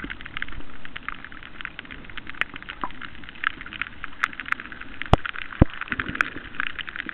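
Underwater reef crackle: a dense, steady stream of sharp clicks, typical of snapping shrimp, with two dull thumps about five seconds in.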